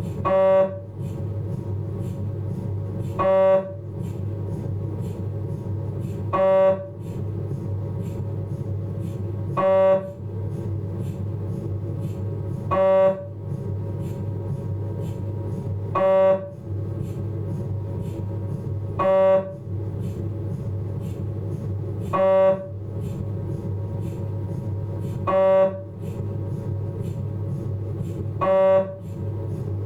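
Philips 1.5 T MRI scanner's gradient coils running a respiratory-triggered T2 coronal scan: a short, loud, buzzing tone roughly every three seconds over a steady low hum.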